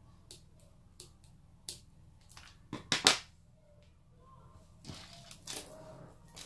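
Small sharp clicks of scissors snipping off excess chain trim, then a louder clatter about three seconds in as the scissors are set down on a wooden tabletop, followed by soft scuffling of handling.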